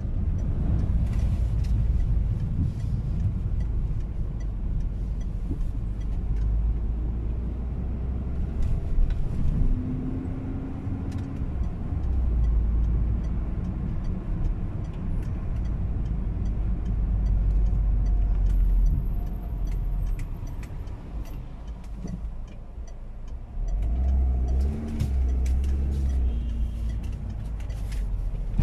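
Car driving in traffic, heard from inside the cabin: a steady low engine and road rumble with tyres on a wet road.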